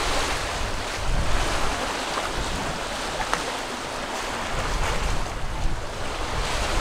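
Open-ocean waves rushing and sloshing around a sailing catamaran under way, with wind on the microphone: a steady rushing noise over a deep rumble that swells a little about a second in and again near the end.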